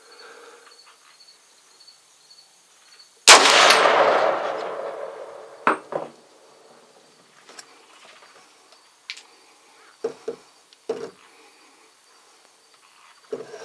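A single gunshot about three seconds in, its report rolling away over about two seconds: the shot that drops a hog at the feeder, a headshot. A few sharp clicks and knocks follow, over the steady chirring of insects.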